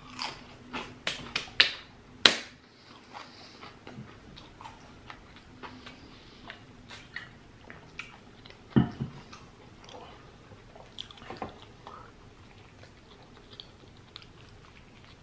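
A person chewing a mouthful of cheesesteak sandwich close to the microphone, with wet mouth clicks and smacks that are loudest and most frequent in the first two seconds, then quieter chewing. A single dull thump about nine seconds in.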